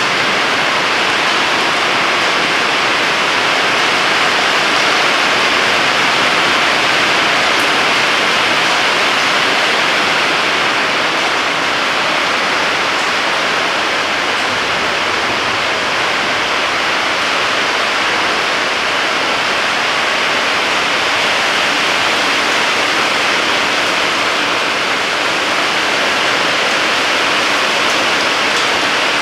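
Heavy rain falling steadily: a loud, even hiss with no let-up.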